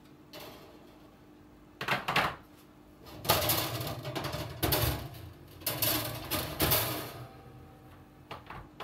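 Kitchen items being handled: a brief clatter about two seconds in, then several seconds of irregular clattering and rustling, and a few light clicks near the end, over a steady low hum.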